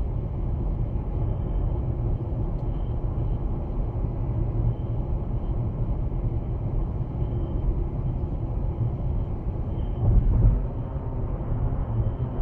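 Steady low rumble of road and engine noise inside a 2015 Chevrolet Malibu's cabin, cruising on cruise control at about 64 mph with the engine near 1,860 rpm. A brief swell in loudness comes about ten seconds in.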